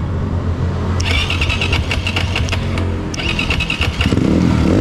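Small motorcycle engine revved hard against the rev limiter of an aftermarket CDI, the ignition cutting in and out in a rapid stutter for about two seconds and again briefly after a short gap. Near the end the revs climb once more.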